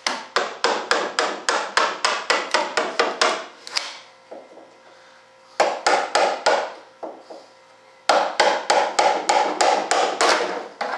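Rapid runs of hard taps, about four a second, from a hand tool striking a fibreglass mold to loosen a freshly moulded composite stabilizer from it. The mold rings faintly under the blows. A long run is followed by a pause near the middle, then a few taps and a second long run.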